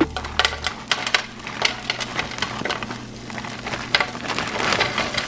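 Frozen diced potatoes with onions and peppers pouring from a bag into a hot oiled griddle pan: the cubes land in an irregular scatter of clicks and taps over a light sizzle.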